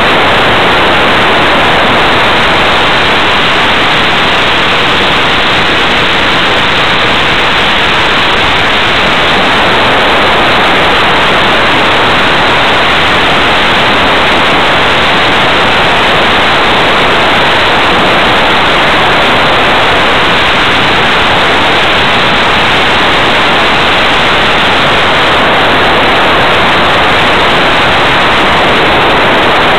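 Steady, loud rushing noise of airflow over a small onboard camera's microphone on an RC model plane in flight, with no distinct motor or propeller tone standing out.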